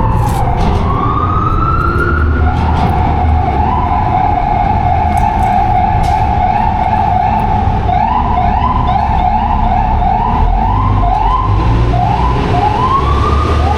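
Emergency vehicle siren: a falling then rising wail, a held tone for about five seconds, then a fast yelp of rising sweeps about two a second from about eight seconds in. Low traffic rumble underneath.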